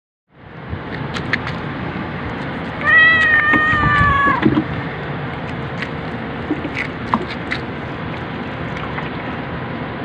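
Orange-and-white domestic cat giving one long meow about three seconds in, falling slightly in pitch at the end, over a steady background hiss.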